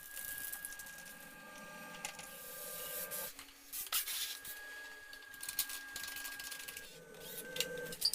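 A small motor-driven workshop tool running with a steady whine while scraping or rubbing against a part. The whine stops about three seconds in and starts again about a second later, with a few short knocks.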